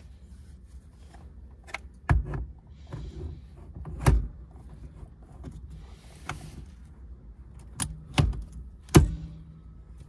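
Aftermarket quick-release steering wheel being pushed onto its hub and latched: a series of sharp clicks and clunks, the loudest about four and nine seconds in.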